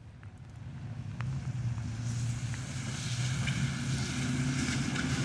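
Pickup trucks driving across a railroad crossing on wet pavement: a low engine hum and the hiss of tyres on the wet road, building as they come through, with a few light clicks.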